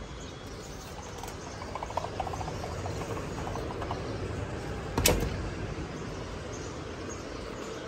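Outdoor ambience through an open balcony window, with faint bird chirps; about five seconds in, a sliding window is pushed shut and knocks once against its frame.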